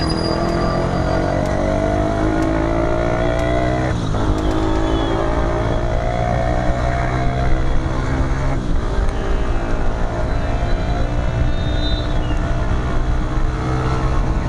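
Motorcycle engine accelerating through the gears, its pitch rising steadily and dropping at gear changes about 4 and 8.5 seconds in, then holding more even. A heavy low rush of wind on the microphone runs beneath it.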